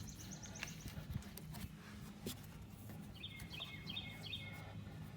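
Small birds calling faintly: a fast, high trill that stops within the first second, then four short descending chirps about three seconds in, over a steady low hum.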